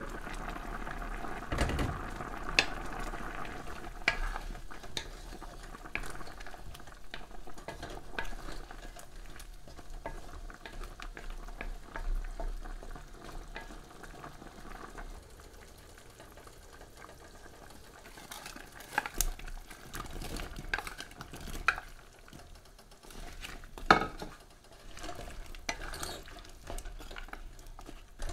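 Wooden spatula stirring a simmering chicken stew in a nonstick pan, with the liquid bubbling and the spatula scraping and knocking against the pan in irregular clacks. The knocks come louder and in clusters later on, the sharpest one near the end.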